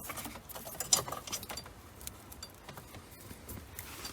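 Light clicks and rustling as car alarm wiring and plastic plug connectors are handled, with a sharper click about a second in.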